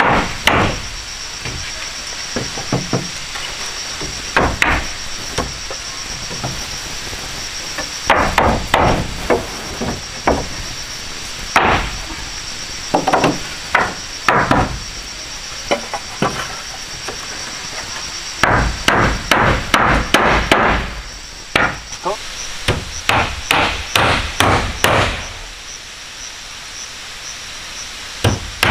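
Hammer striking wood, in irregular runs of several quick blows with pauses between. A steady high-pitched buzz runs underneath.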